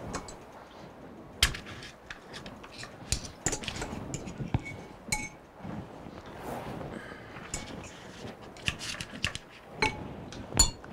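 Metal fork clinking and scraping against a bowl while cooked chicken is pulled off the bone: irregular sharp taps and clicks, a few with a short ring, the loudest about a second and a half in and near the end.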